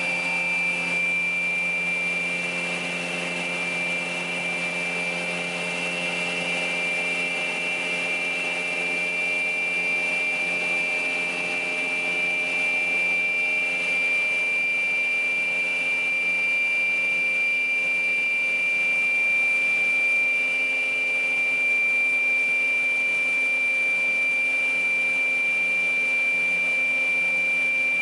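PAUL K3U800 multi-rip saw running steadily without a break: an even motor hum with a constant high whine over it.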